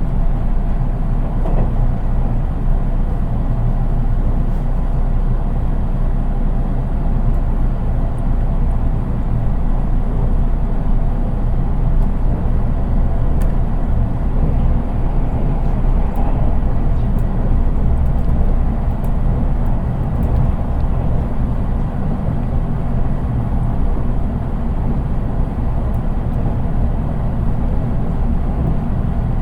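Steady running noise heard inside a JR East 183 series express-type electric car: wheels rumbling on the rails and the car body droning. The car is the unpowered driving trailer KuHa 183-1528, so there is no traction-motor whine and the sound is plain and subdued.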